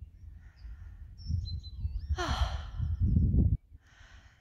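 A runner breathing hard after about ten miles of running: a loud sighing exhale about two seconds in, a heavy rushing breath just after, and a quick intake of breath near the end, over a low rumble of wind on the microphone.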